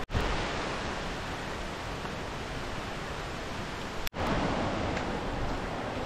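Steady rushing outdoor noise in wet rainforest, a broad even hiss with no distinct events. It cuts out briefly at the start and again about four seconds in.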